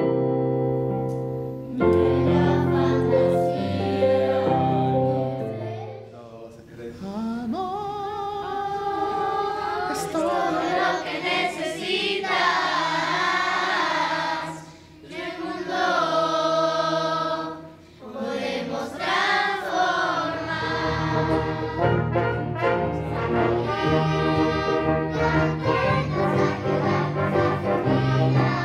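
Choir singing with a brass ensemble. Held brass notes open the passage, voices carry the middle with two short breaks, and low brass notes return about two-thirds of the way through.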